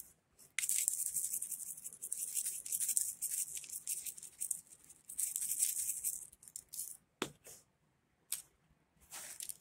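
Plastic spice shaker shaken hard, the dry spice rattling inside it in quick spells: two long spells of shaking, then a few short shakes near the end.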